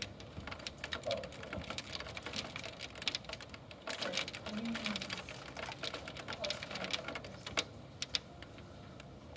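Hailstones hitting hard surfaces: a rapid, irregular patter of sharp clicks that gets denser about four seconds in and thins out toward the end.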